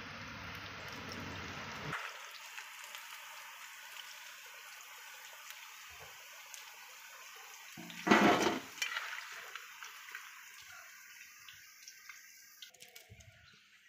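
Cauliflower pakodas deep-frying in hot oil in an iron kadai: a steady sizzle that thins and fades toward the end as the fritters are lifted out on a slotted skimmer. One loud, brief rush of noise comes about eight seconds in.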